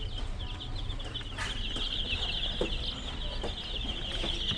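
A brooder full of baby chicks peeping: a dense, continuous chorus of short high cheeps, many per second, over a steady low hum.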